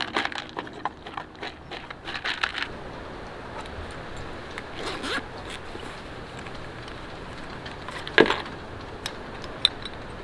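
Small handling sounds: a quick run of clicks at first, a scrape about five seconds in, and one sharp knock just after eight seconds, over a steady low hiss.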